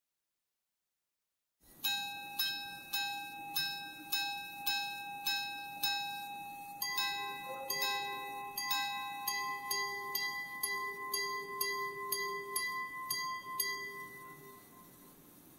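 Antique gold repeating pocket watch chiming the time: about eight evenly spaced strikes on one tone, then from about halfway a run of strikes on two tones, each ringing on and dying away near the end.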